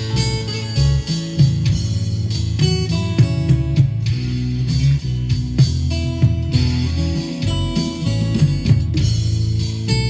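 Epiphone acoustic guitar played fingerstyle with a capo, a continuous run of picked notes over a steady, full bass.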